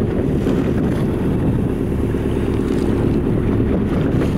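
Steady low drone of a small tour boat's engine running under way, mixed with wind rumbling on the microphone.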